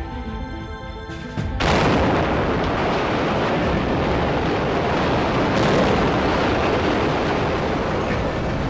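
Power plant demolition blast: about a second and a half in, a sudden loud boom, followed by a long, continuous rumble of the structure coming down. Background music plays under it.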